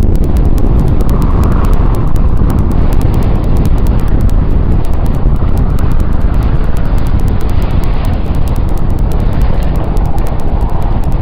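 Rumbling space sound effect: a loud, steady, deep rumble with a faint, rapid crackle of ticks above it.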